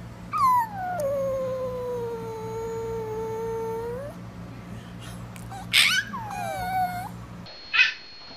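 Maltese dog howling: one long howl that slides down in pitch and then holds steady for about three seconds. A shorter, falling howl follows a couple of seconds later.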